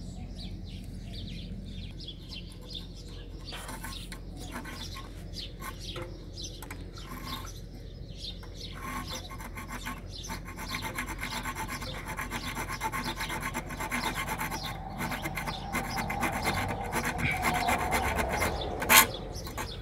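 Hand-held hacksaw blade sawing through a copper water pipe in rhythmic back-and-forth strokes, faint at first and louder from about halfway through. A sharp click near the end.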